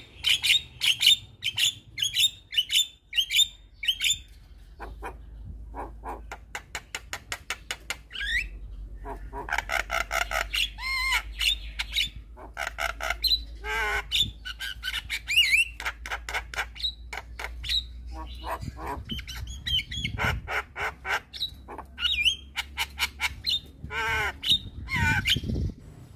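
Javan myna singing: a varied run of harsh squawks, rapid chattering clicks and short whistled notes. It opens with loud squawks about twice a second, then a quick series of ticks before the chatter and whistles resume.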